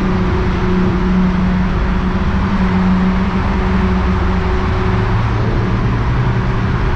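Inside the cabin of a VR6-swapped Volkswagen Mk3 cruising through a road tunnel: a steady engine drone over tyre and road noise. The engine note drops lower about five seconds in.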